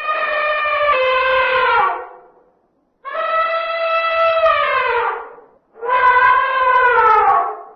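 Male African elephant trumpeting: three long, loud blasts, each holding a steady pitch and then sliding down as it ends.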